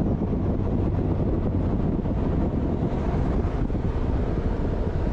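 Bass boat running at speed: steady wind rush on the microphone over the low drone of the outboard motor.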